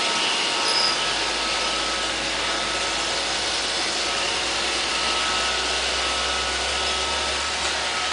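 Roomba robot vacuum cleaner running: a steady whirring hiss with a faint high-pitched tone over it.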